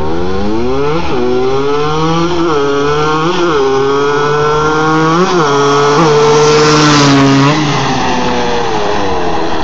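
Suzuki LT250R quad's two-stroke engine accelerating hard through the gears, its pitch climbing and then dipping at each of several upshifts. It is loudest as it passes about six to seven seconds in, then its pitch falls away as it goes by.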